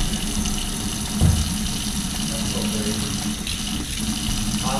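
Water running steadily from a newly installed pull-down kitchen faucet into a stainless steel sink, test-running the faucet after installation. A brief low knock sounds about a second in.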